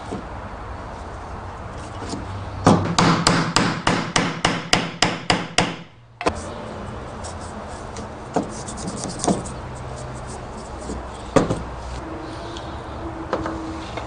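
A hammer tapping glued stick legs into drilled holes (mortises) in a log body: about a dozen quick knocks, roughly three a second, ending in a sudden cut, then a few single knocks spread out afterwards.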